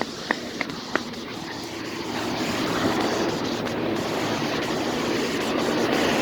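A few footsteps, then the steady rushing of an outdoor air-conditioner condenser fan, which grows louder about two seconds in.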